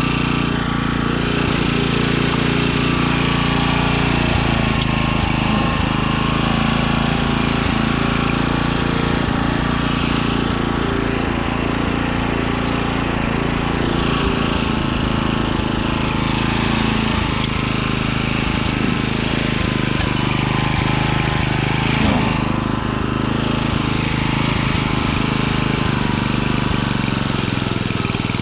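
Small gas-powered mini tiller (front-tine cultivator) engine running steadily while its tines churn through garden soil, with scattered short clicks over the engine note.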